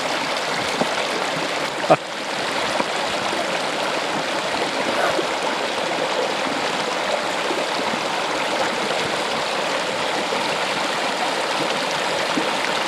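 Steady rushing of flowing water, with a single sharp click about two seconds in.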